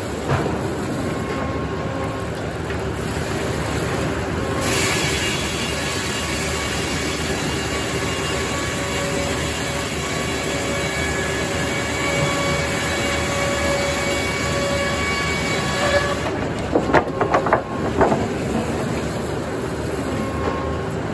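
Circular sawmill head saw running steadily, then biting into a poplar log from about five seconds in until about sixteen seconds: a high ringing whine rides over the mill's running while the blade is in the cut. Just after the cut, a few loud knocks, then the blade spins free again.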